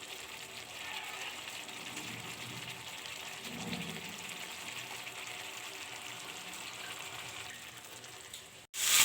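Spice paste of onion, chili, turmeric and ginger-garlic sizzling steadily in hot oil in a pan as the masala is fried down. The sizzle cuts off abruptly near the end.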